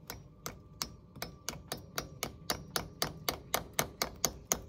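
Hammer tapping a nail into an oak beam set in a stone wall: a steady run of sharp blows, about three to four a second, getting harder as it goes.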